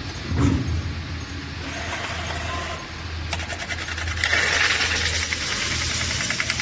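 Metal spinning machine running with a steady low motor hum. About three seconds in a rapid rattling starts, and a second later a loud scraping hiss joins it as the tool works against the spinning metal.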